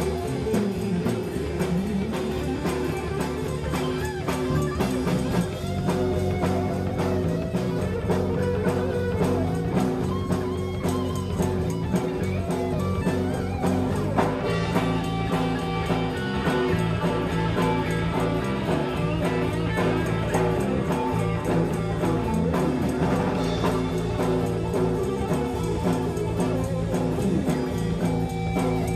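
Live rock-blues band playing an instrumental passage: electric guitar over bass guitar and a drum kit keeping a steady beat.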